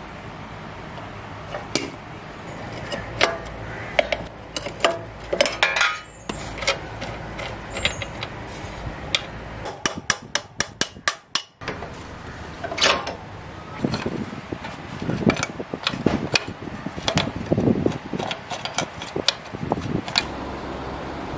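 Metal tools clinking and knocking on a Royal Enfield Classic 500's rear axle as it is undone and driven out with a steel rod: irregular sharp metallic taps, a quick run of clicks about ten seconds in, and heavier knocks in the second half.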